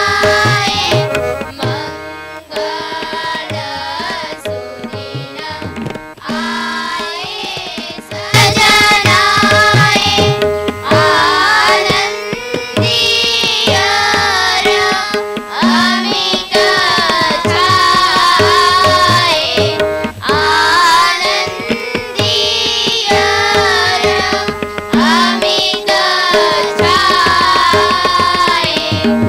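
A group of children singing an Indian song in chorus, accompanied by tabla and harmonium. The singing gets louder about eight seconds in.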